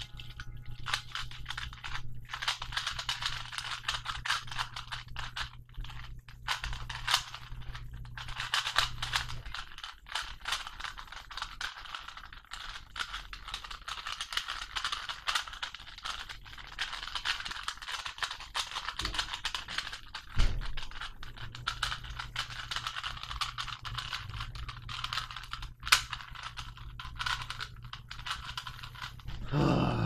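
Rubik's cube being twisted rapidly by hand: a continuous stream of dense plastic clicking and clacking as the layers turn. Two sharper knocks stand out in the last third.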